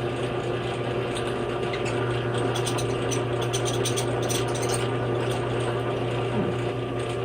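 Drill press running at slow speed with a steady hum, its 1/8 inch bit cutting into a brass latch post with a faint scratchy chatter.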